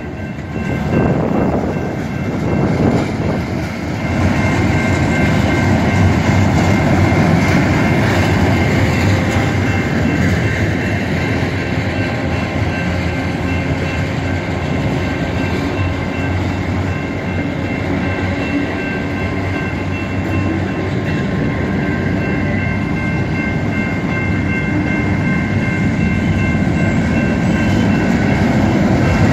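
Union Pacific freight train rolling past, its wheels running over the rails in a steady loud rumble, with thin steady high tones over it.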